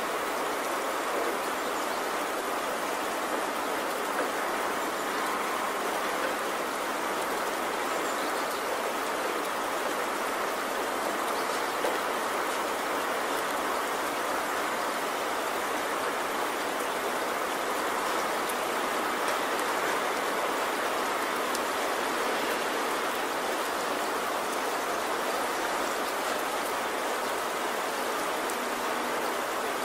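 Steady rushing water ambience, an even unbroken hiss with no deep rumble, that holds unchanged throughout.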